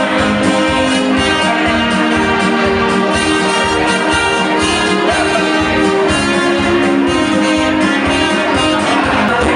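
Brass-led dance band music over a steady beat.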